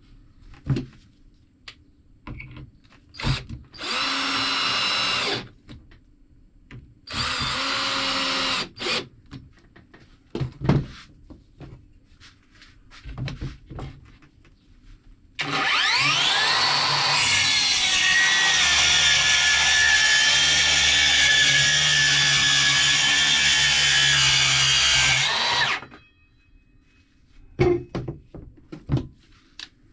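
A handheld electric power tool runs in two short bursts of about a second and a half, then spins up with a rising whine and runs steadily for about ten seconds before stopping. Scattered knocks and clicks from handling wood and tools come between the runs.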